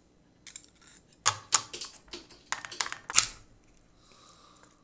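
Steamed blue crab shell being broken apart and picked at while eating: a run of sharp clicks and cracks, loudest a little after one second and again about three seconds in, then quiet near the end.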